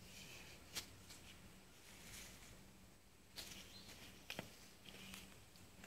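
Near silence, with faint rustling and two light clicks, one about a second in and one past four seconds, from sticks being handled.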